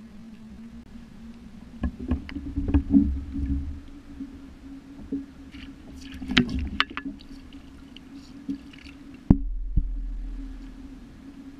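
Water sloshing against a GoPro's dome housing held at the waterline, with a steady low hum under it. Bumps and taps come in a cluster about two seconds in and again around six seconds. A heavy thump near the end is followed by a low muffled rumble that fades.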